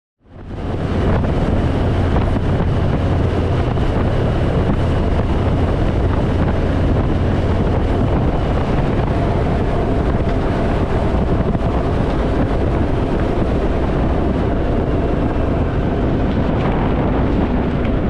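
Wind rushing over the microphone on a Harley-Davidson Fat Boy motorcycle at steady cruising speed, with the bike's V-twin engine running underneath. The noise fades in just after the start and holds steady.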